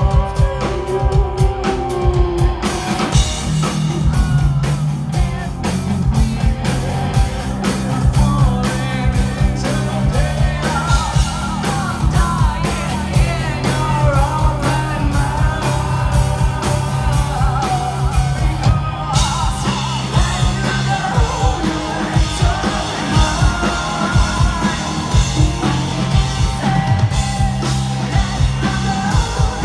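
A rock band playing live: a woman sings into a microphone over electric guitar, bass guitar and a drum kit with a steady beat. The sound changes abruptly twice, where the recording is cut.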